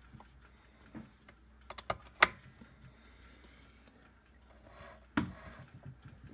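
Brother Boutique 751 sewing machine's needle and hook mechanism turned over by hand, giving light mechanical clicks, with a quick run of sharper clicks about two seconds in and a thump near the end. This is the needle going down to pick up the bobbin thread.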